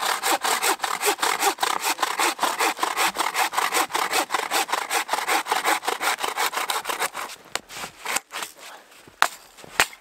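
Hand saw cutting through a dead wooden limb in rapid, even back-and-forth strokes. The sawing stops about seven seconds in, followed by a few sharp knocks.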